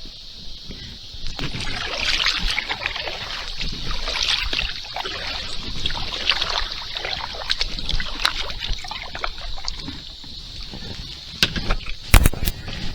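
Kayak paddling: water splashing and dripping from the paddle blades in irregular strokes, with a few sharp knocks near the end.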